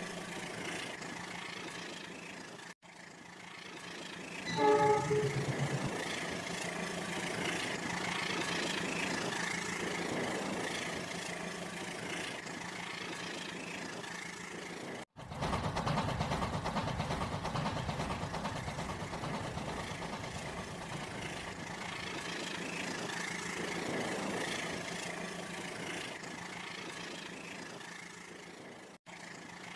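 Train running with a steady hum, a short horn blast sounding about five seconds in. The sound drops out for an instant three times.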